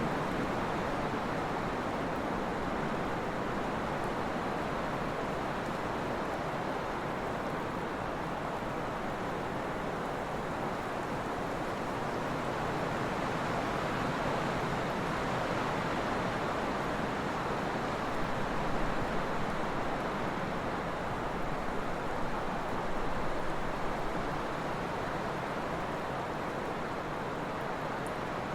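Trade wind blowing steadily, an even rushing noise, with a few slight gusts swelling up about two-thirds of the way through.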